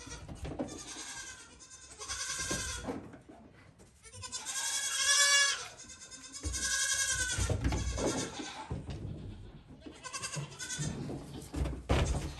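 Goat kids bleating, a string of wavering calls every second or two, the loudest about five seconds in. Hooves knock on wooden stall boards, with a heavy thump near the end.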